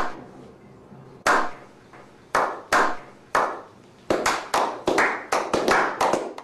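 Slow clap by a small group of men: single sharp hand claps about a second apart, quickening after about four seconds into faster clapping of several claps a second.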